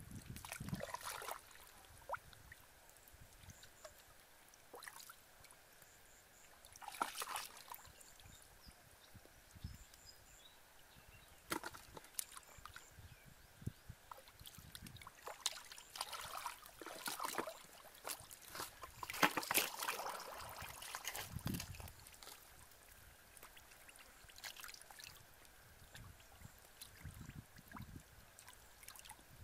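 Hands sloshing and splashing in shallow muddy water while groping for fish, in irregular bursts with quieter stretches between; the loudest run of splashing comes about two-thirds of the way through.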